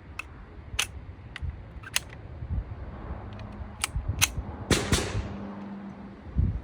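Gunshots at a shooting range: about eight separate reports at irregular spacing. The loudest are two quick shots about five seconds in, with a trailing echo. A low thump comes just before the end.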